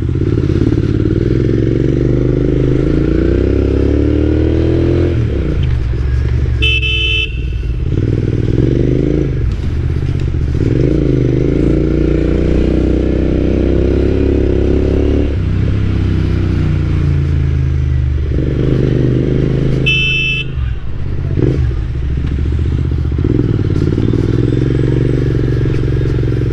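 Royal Enfield Interceptor 650's parallel-twin engine running under way, its pitch rising as it accelerates and dropping at each gear change. A horn honks briefly twice, about seven and twenty seconds in.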